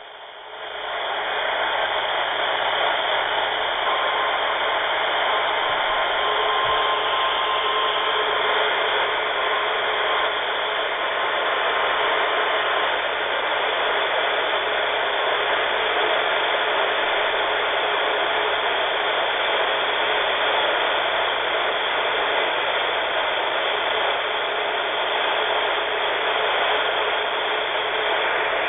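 Steady static hiss from a Midland weather radio receiver with no broadcast coming through, with a faint thin whistle in the hiss for several seconds in the first half.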